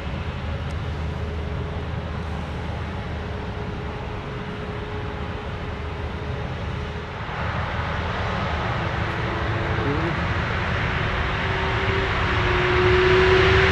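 Airbus A350's Rolls-Royce Trent XWB jet engines spooling up: over a steady low rumble, a roar with a faint rising whine builds from about halfway through and keeps growing louder.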